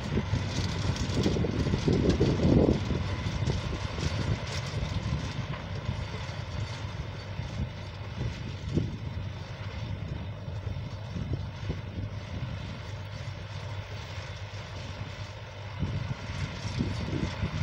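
Small tractor's engine running as it pulls a rotary tiller through the soil, growing fainter as it moves away.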